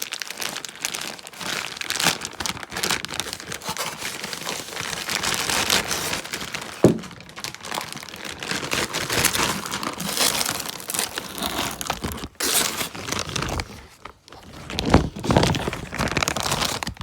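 Packaging being pulled open and unwrapped, crinkling and tearing continuously, with one sharp knock about seven seconds in.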